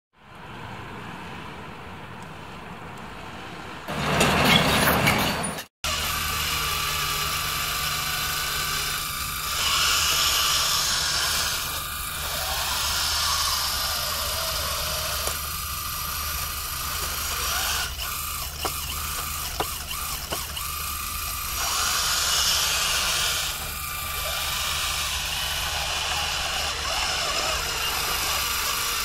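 Scale RC Liebherr 576 wheel loader running: a sound module's steady diesel engine hum, overlaid by the whine of its electric hydraulics and drive motors, which swells twice for a second or two as it works. Before that, about four seconds in, there is a short loud burst and then a brief dropout.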